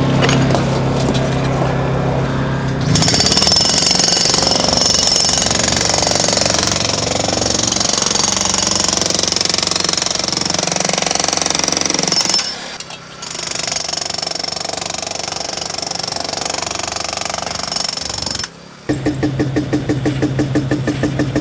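Jackhammer breaking up thick concrete, a dense loud hammering that starts about three seconds in over a steady engine hum, breaks off briefly partway through, and stops near the end. After it stops, the engine runs on with a fast rhythmic pulsing.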